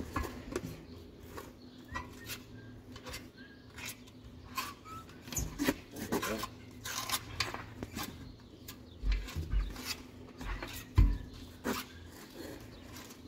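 Rubbing, light clinks and scattered knocks of hands working on a tire as grease is smeared onto the bead, over a faint steady hum.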